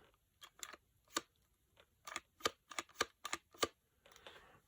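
About a dozen sharp, irregular plastic clicks in the first three seconds or so: a Hasbro T-Rex action figure being handled, its loose joints and snapping jaw moved by hand.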